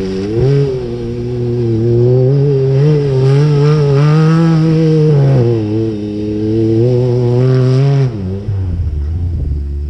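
Yamaha YXZ1000R side-by-side's three-cylinder engine held at high revs while the machine slides in circles on loose gravel. The revs sag briefly about five seconds in, climb again, then fall off about eight seconds in.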